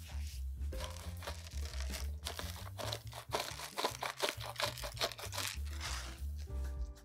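Pepper mill grinding black pepper: a quick run of gritty, crunching clicks that starts about a second in and stops near the end, over soft background music.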